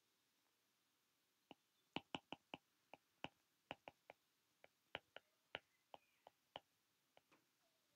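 Stylus tip tapping on an iPad's glass screen while writing by hand: a run of short, sharp clicks at irregular spacing, several a second, starting about one and a half seconds in.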